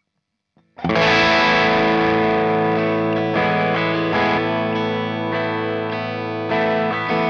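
Gibson Les Paul played through an AmS Tornado 20, a 20-watt valve amp with two EL84s, into a 1x12 Celestion Alnico Cream cabinet, giving ringing overdriven crunch chords. The guitar comes in about a second in and changes chord a few times.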